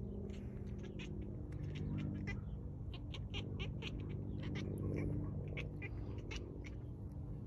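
A cat making a run of short, high chirping sounds, many in quick succession, over a steady low background hum.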